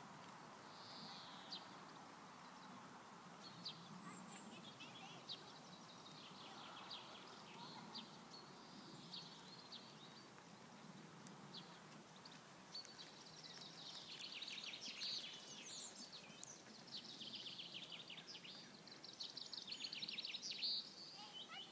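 Wild birds singing, with chirps and rapid trills that grow busier and louder in the second half, over faint outdoor background noise.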